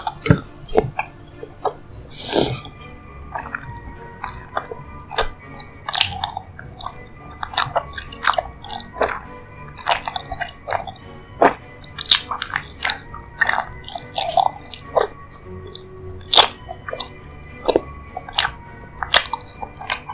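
Close-miked eating sounds: a person chewing and crunching into a dessert, with many short sharp crunches and smacks, over soft background music with held tones.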